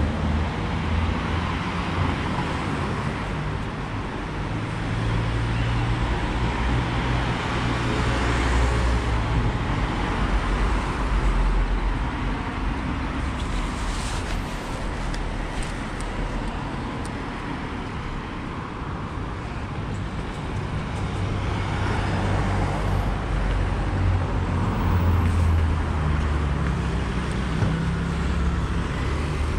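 Road traffic: car engines and tyre noise, swelling as vehicles come close around a quarter of the way in and again in the last third, then fading as they go past.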